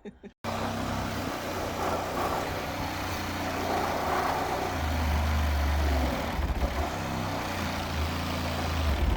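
Electric saw starting suddenly and running steadily as it cuts into the summer house's timber, its low note getting heavier about halfway through.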